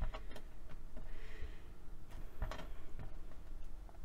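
Light scattered taps and clicks, with a soft rustle about a second in, as a block of polymer clay is pressed and shaped by hand on the work surface.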